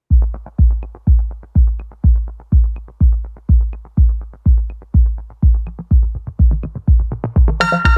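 Electronic background music: a steady, heavy drum-machine kick at about two beats a second, with a synthesizer chord coming in near the end.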